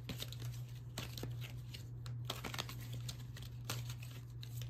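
A deck of oracle cards being shuffled by hand: irregular papery rustles and soft card clicks, over a steady low hum.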